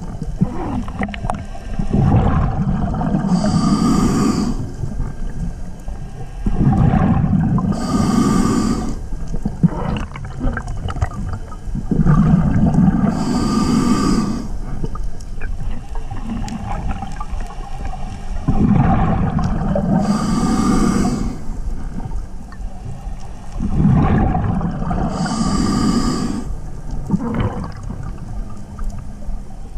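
Scuba diver breathing through a regulator underwater: a low bubbling rumble and a short hiss with each breath, about one breath every five to six seconds, five in all.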